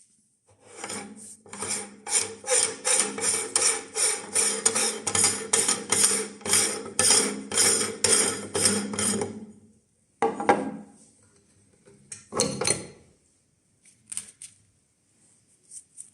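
Wafers crunching as they are ground in an iron meat grinder: an even, rhythmic crunch about two to three times a second for roughly nine seconds. It then stops, followed by two sharp clatters and a few lighter knocks.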